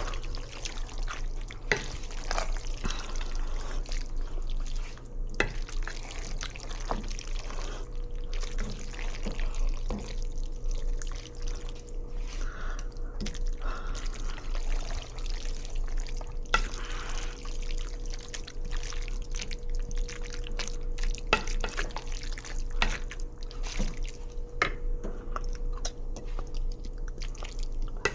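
Kitchen work: scattered clinks and knocks of dishes and utensils with some running and dripping water. A steady hum comes in about eight seconds in and holds.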